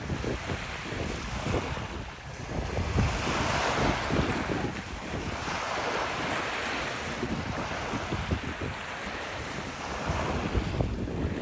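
Ocean surf washing onto a beach, a wave swelling up and fading through the middle, with wind buffeting the microphone in low gusts.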